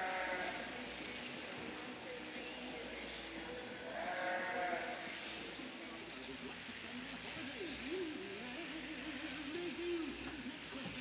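Sheep bleating twice, about four seconds apart, over the steady whir of electric sheep-shearing handpieces. A lower, wavering pitched sound runs through the last few seconds.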